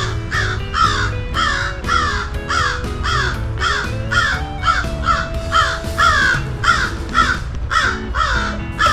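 A crow cawing over and over, about two to three calls a second without a break, with background music underneath.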